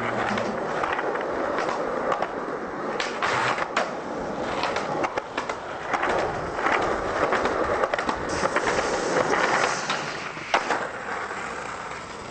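Skateboard wheels rolling over rough concrete, with several sharp clacks of the board popping and landing.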